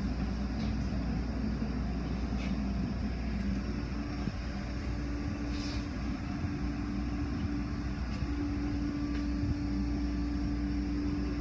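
Automatic car wash heard from inside the car: a steady rush of water and wash machinery over the car, with a low rumble. A steady motor hum joins about halfway through.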